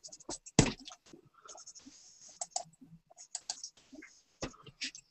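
A run of irregular light clicks and taps, with one sharper knock about half a second in.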